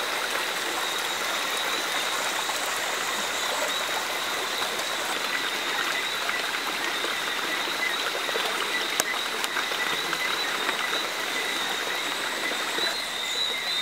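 Steady forest ambience: an even hiss with a thin, continuous high-pitched tone running through it, and one sharp click about nine seconds in.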